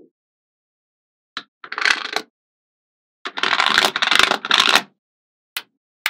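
Small magnetic balls clicking and rattling as they are handled: a single click, a short rattle about two seconds in, a longer scraping clatter in the second half, and one more click near the end.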